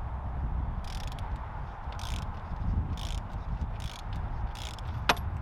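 Ratchet wrench clicking in short strokes about once a second, turning the top cap bolt out of a RockShox Boxxer fork leg, with a sharp metallic clink near the end.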